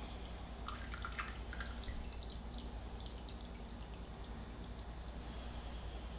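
Maple syrup draining from an upturned glass measuring cup into a ceramic bean pot: faint drips and small ticks, mostly in the first couple of seconds, over a steady low hum.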